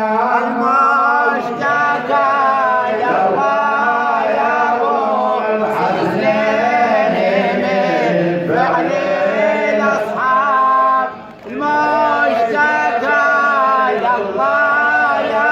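A man chanting a Shia nawha (mourning lament) in Arabic, unaccompanied, in long drawn-out phrases whose pitch bends up and down. There is a brief break about eleven seconds in.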